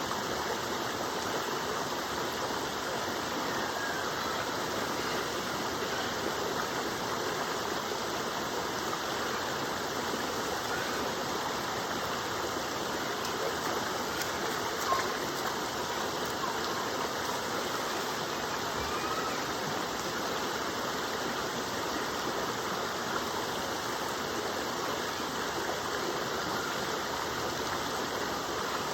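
Waterfall: water falling and rushing steadily in an even, unbroken wash of noise, with a single brief click about halfway through.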